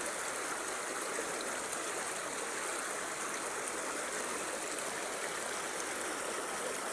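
Stream water flowing steadily, an even, unbroken sound of running water.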